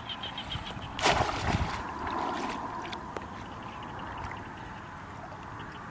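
Shallow water splashing and sloshing as a person wades and works with their hands in it, with one louder splash about a second in.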